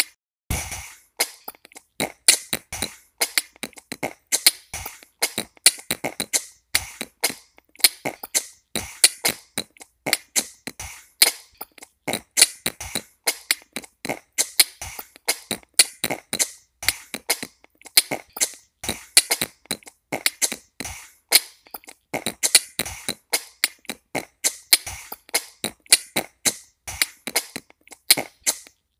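Beatboxing: mouth-made percussion in a fast, steady rhythm of kicks, snares and clicks, several strokes a second.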